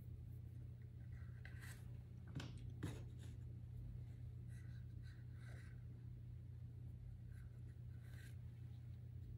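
Faint drawing strokes scratching on pastel paper in a few short bouts, with two light taps about two and a half seconds in, over a steady low hum.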